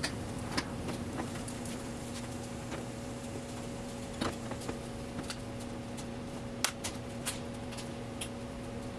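Scattered light clicks and taps of a plastic headlight assembly being handled and lined up in a car's front end, a dozen or so at irregular times, the sharpest about four and six and a half seconds in. Under them runs a steady low hum.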